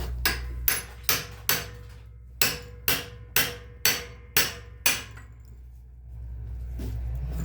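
Hammer blows on steel, about ten sharp metallic strikes in two quick runs with a short pause between, knocking at a seized, rust-bound part of a Subaru Impreza's rear brake caliper bracket that will not budge.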